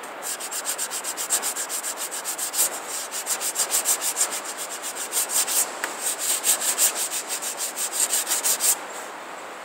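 Sandpaper rubbed rapidly back and forth by hand along the rawhide-backed edge of a wooden bow, about five strokes a second, with a brief pause just before six seconds and a stop near the end. The sheet is worn, described as pretty much cooked.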